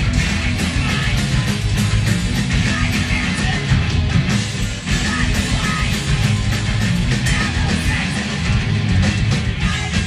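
Ska-punk band playing live: electric guitars, bass and drums going steadily, loud and without a break.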